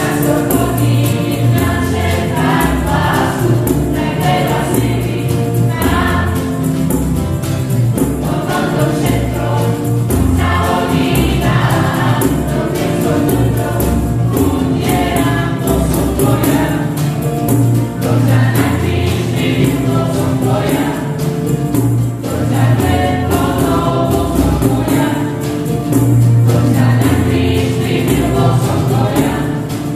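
Mixed youth choir of male and female voices singing a Christian song, accompanied by guitar, keyboard and a tambourine played in a steady rhythm.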